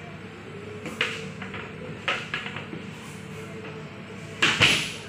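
Wooden stick knocking and scraping inside a cobra enclosure: sharp knocks about one and two seconds in, and a louder, longer knock-and-scrape about four and a half seconds in.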